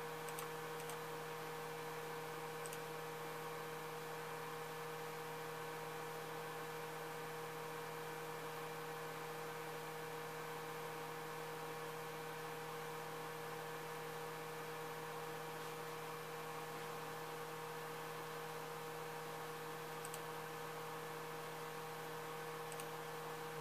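Steady, low-level electrical hum with a few fixed tones, unchanging throughout.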